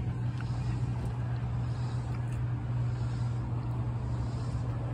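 A steady low mechanical hum, like a motor running without pause, over faint outdoor background noise.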